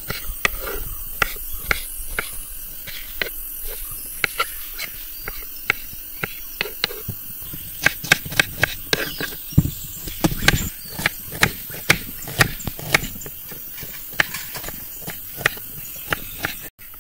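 Small kitchen knife chopping through tomato and onion onto a wooden cutting board: a run of irregular sharp knocks, coming quicker about halfway through.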